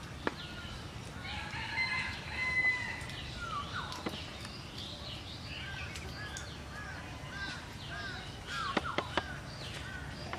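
A rooster crows once, about two seconds in, over chirping birds. Short, evenly repeated chirps follow from about six seconds in, and a few sharp knocks come near the end.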